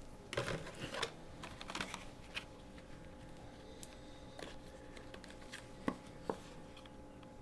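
Light clicks, taps and scratches of trading cards and a sealed card pack being handled on a cloth-covered table, busiest in the first two seconds, with two sharp clicks near the end.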